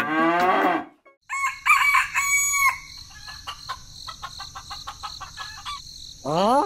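Chicken clucking in short pitched calls, after the tail of a long, low moo-like call fades out in the first second; a run of faint clicks follows, and a rising call near the end.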